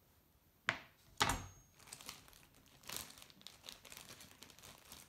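Two sharp knocks of a knife blade striking a wooden cutting board as a small block of clear glycerin soap is cut, then a plastic zip-top bag crinkling steadily as it is handled.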